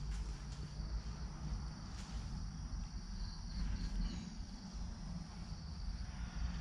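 Quiet background ambience: a steady high-pitched insect sound over a low rumble, with a few faint ticks.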